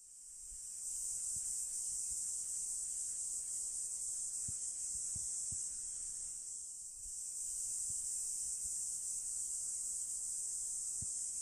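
Steady, high-pitched chorus of summer insects, fading in over the first second and dipping briefly a little past the middle.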